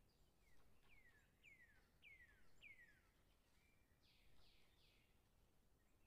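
Faint bird calls: a run of about five clear whistles, each sliding down in pitch, roughly half a second apart, followed by three short, rougher notes.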